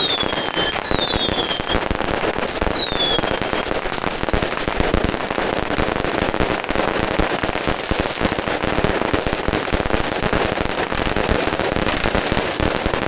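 Firecrackers going off in a dense, continuous crackle, with a few short falling whistles in the first three seconds.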